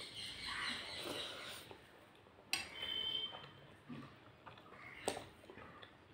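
Eating rice by hand from a plate: fingers squishing and mixing rice with fish curry, and soft chewing. Two sharp clinks against the plate come about two and a half seconds in and again about five seconds in; the first rings briefly.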